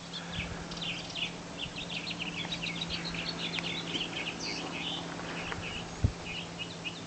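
Many small birds chirping busily with short, rapid calls, over a steady low hum, with one brief thump about six seconds in.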